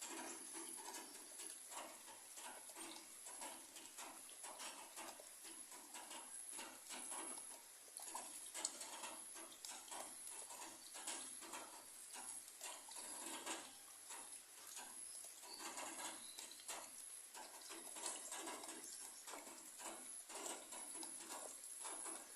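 Rain pattering and dripping on broad papaya leaves: irregular soft taps of drops over a gentle hiss. A thin steady high tone sits behind it.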